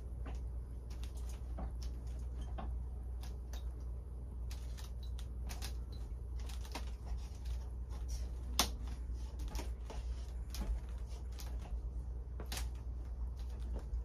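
Irregular light taps and clicks of hands pressing a glass pane against a garage door panel as it is set into adhesive, with a few sharper clicks about midway and near the end. A steady low hum runs underneath.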